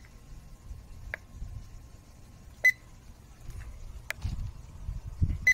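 Handheld infrared thermometer giving short, high single beeps as readings are taken: a faint one about a second in, then two clear ones about three seconds apart. A low rumble underneath grows louder near the end.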